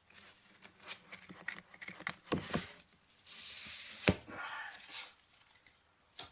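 Trading cards and a foil booster-pack wrapper being handled: scattered light clicks and rustles, with a longer crinkling hiss about three and a half seconds in and a sharp tap about four seconds in.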